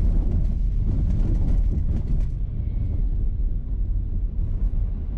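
A vehicle driving along an unpaved dirt road, heard from inside the cab: a steady low rumble of the engine and tyres on the rough surface.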